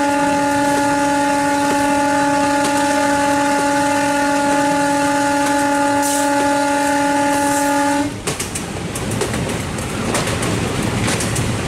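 Locomotive horn giving one long, steady blast of about eight seconds that cuts off sharply. After it, the train's running rumble with the wheels clicking over rail joints.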